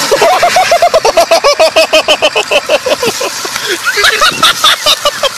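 A person laughing hard in a fast run of high-pitched bursts, turning to shriller squeals near the end.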